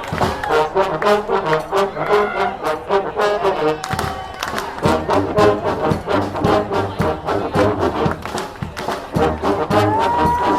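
Brass marching band playing an instrumental tune: trombones and trumpets over a steady drum beat.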